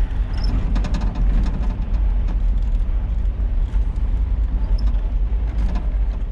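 Wind buffeting the microphone, a loud, uneven low rumble, with a few faint clicks.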